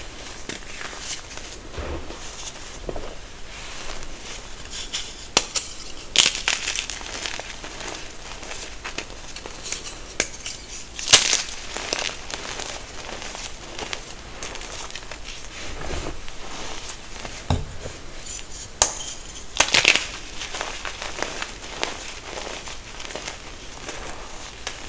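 Hands squeezing and crumbling reformed gym chalk in a heap of loose chalk powder: a steady soft crunching and crackling, with sharper, louder crunches about six, eleven and twenty seconds in.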